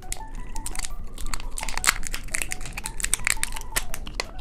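Plastic candy wrapper crinkling as it is handled, a dense run of small, irregular crackles.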